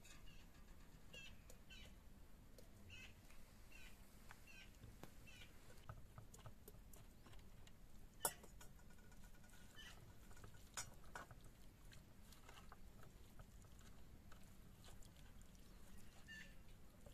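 Near silence with faint, scattered bird chirps and small handling clicks, and one sharp click about eight seconds in.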